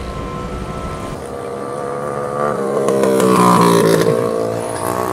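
A motor vehicle's engine passing close by, swelling to its loudest about three and a half seconds in and then fading.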